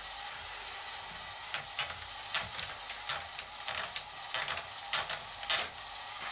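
Manual typewriter being typed on: irregular key strikes, about a dozen, beginning about a second and a half in, over a steady hiss.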